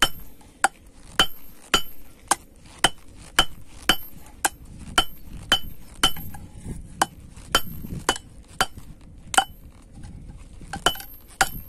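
Hand hammer striking red-hot 5160 leaf-spring steel on a steel-plate anvil, forging the point of a knife blade. Steady blows about two a second, each a short metallic clink, with a brief pause about nine seconds in.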